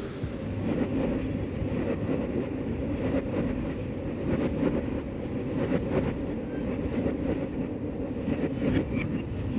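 Train running on rails: a steady low rumble with occasional faint clicks.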